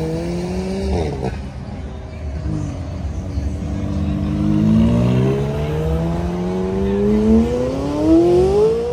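McLaren twin-turbo V8 accelerating hard away down the road. Its pitch dips briefly about a second in, then rises steadily for several seconds, loudest near the end.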